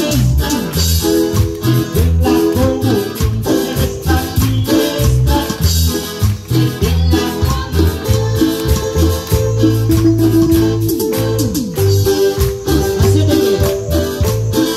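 Live band playing Latin-style church music: keyboard, guitar and bass over a steady rattle beat.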